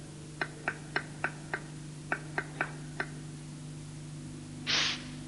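Cartoon sound effects for a cat's light tiptoeing footsteps: a run of short, soft plinks, about three a second, that stop about three seconds in. A brief breathy whoosh follows near the end.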